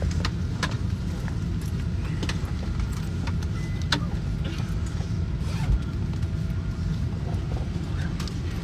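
Steady low rumble and hum of an airliner cabin, with scattered sharp clicks and knocks.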